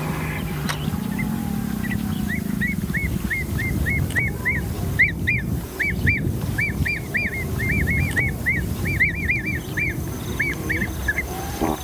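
Birds calling: a long run of short, arched chirps, several a second, starting about a second in and stopping near the end, over a steady low rumble.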